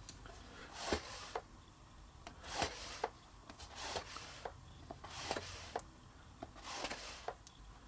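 Pencil drawing short lines along a steel rule on a board: about five brief scratching strokes, one every second and a half or so, with small clicks and taps between them as the rule is moved.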